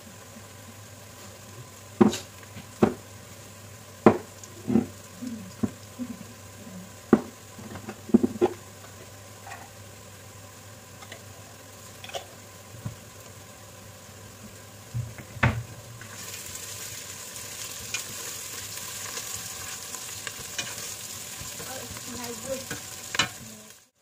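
Sliced onions and whole spices frying in oil in a steel pot: a string of sharp knocks and clicks through the first half, then a steady sizzle from about two-thirds of the way in.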